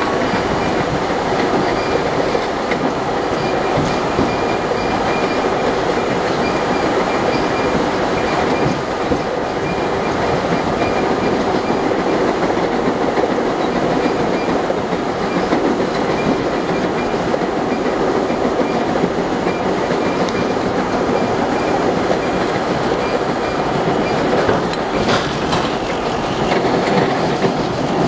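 R32 subway car running at speed, heard from inside the car: a steady rumble and rattle of wheels on rail with clickety-clack over the rail joints, and a sharp clank near the end.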